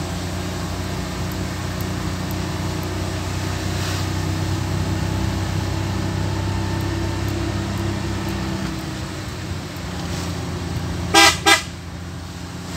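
Steady car engine and road noise heard from inside the cabin, then two short car-horn toots near the end, the loudest sound.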